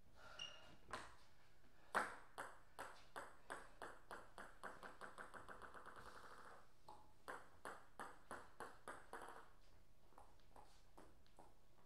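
Table tennis ball bouncing to rest: sharp pings that come faster and fainter until they run together, followed by a second, shorter run of bounces settling the same way.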